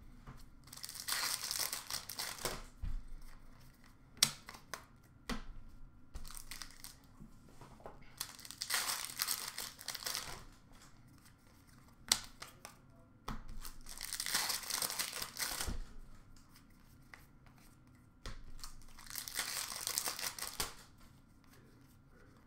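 Hockey trading-card packs being handled: wrappers crinkling and cards rustling in four stretches of about two seconds each, with light taps and clicks between.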